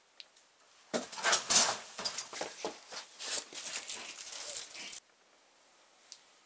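Rummaging through boxes of clutter: about four seconds of loud, irregular rustling and clattering that cuts off abruptly.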